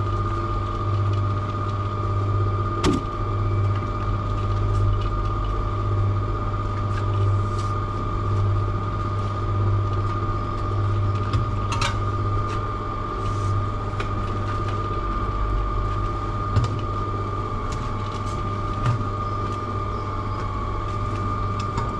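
Cement mixer running: a steady motor hum with a constant high whine over it. A couple of sharp knocks come through, about three seconds in and again near twelve seconds.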